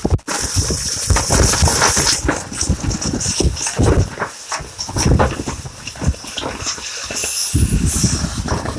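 Duct-cleaning rod and brush working inside an HVAC duct, making irregular knocking, rattling and scraping, with a sharper hissing scrape in the first two seconds.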